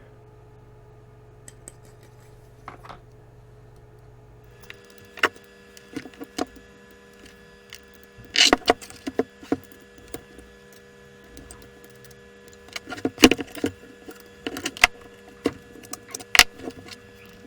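Clicks and clatters of small mechanical parts being handled and set down on a workbench during disassembly of the pump's motor and gearbox assembly, sporadic with a few sharper knocks. A faint steady hum starts about five seconds in.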